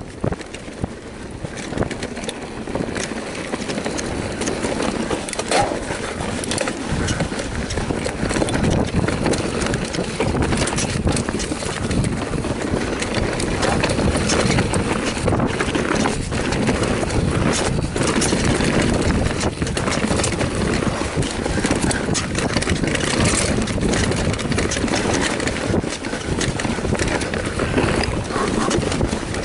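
Mountain bike riding fast down a dirt forest trail, heard from a camera mounted on the bike: a steady rush of tyre noise and wind on the microphone, with frequent clicks, rattles and knocks from the bike going over bumps and roots.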